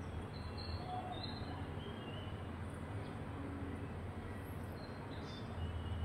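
Outdoor background ambience: a steady low rumble, like distant traffic, with a few faint, short bird chirps scattered through it.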